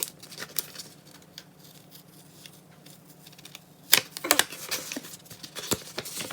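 Paper crackling and small clicks as a folded album poster is carefully worked loose, with a louder burst of paper rustling about four seconds in.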